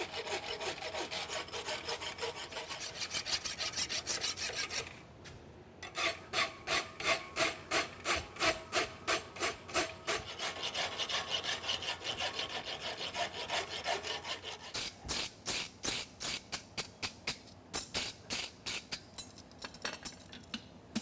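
A flat hand file rasping along the edges of a hot steel horseshoe branch clamped in a vise, in quick, regular back-and-forth strokes of about three a second, with a short pause about five seconds in.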